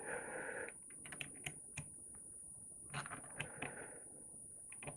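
Faint, irregular light clicks and taps of a 10mm socket and small brake master cylinder parts being handled, with a brief rustle at the start.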